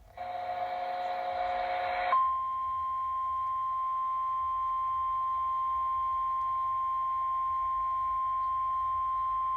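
Emergency Alert System broadcast for a flash flood warning. A harsh, buzzy tone lasts about two seconds, then a single steady high-pitched alert tone near 1 kHz, the National Weather Service warning tone, holds on.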